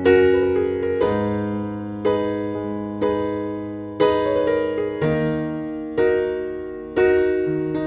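Background music: piano chords struck about once a second, each ringing and fading before the next.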